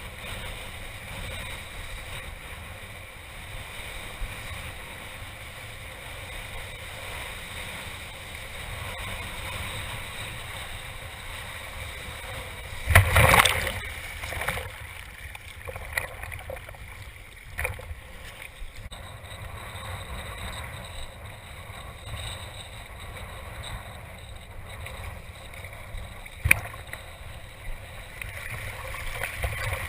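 Water rushing steadily past a kitesurfing board. About halfway through comes a loud, second-long burst of splashing, and near the end a single sharp knock.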